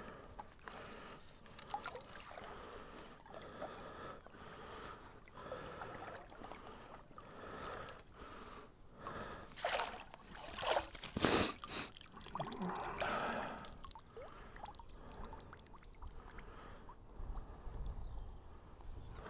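Shallow water sloshing, trickling and dripping as mud and gravel are dug and sifted by hand. A cluster of louder splashes comes about ten to thirteen seconds in.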